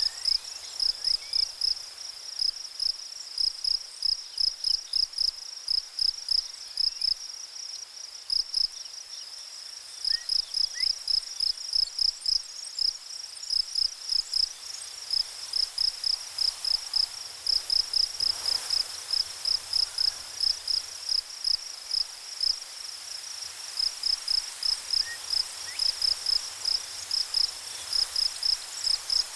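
Cricket chirping steadily in short, evenly spaced high-pitched pulses, about two to three a second, pausing briefly twice, over a faint hiss of background noise.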